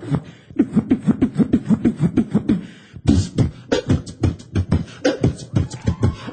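Human beatboxing into a handheld microphone, all done by voice with no instruments: a fast run of drum-like mouth hits over low, pulsing bass tones. The pattern breaks off briefly about three seconds in, then picks up again with harder hits.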